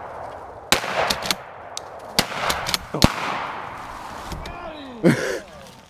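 Footsteps crunching through dry leaf litter, broken by several sharp cracks. A short cry with a falling pitch comes near the end.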